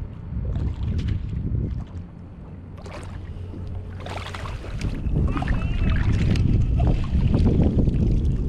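Water splashing as a hooked hammour (grouper) thrashes at the surface beside a kayak and is scooped out in a landing net. The splashing comes in bursts from about three seconds in and gets louder and busier after about five seconds. Under it runs a steady low rumble of wind buffeting the microphone.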